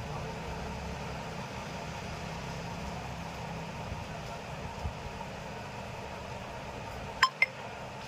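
Steady low background hum, with two short electronic beeps in quick succession near the end.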